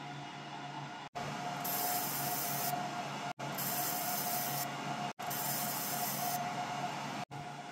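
ComMarker Omni 1 5 W UV galvo laser engraver at work, heard three times as about a second of high, hissing buzz over a steady machine hum and a faint tone, with sudden breaks between them.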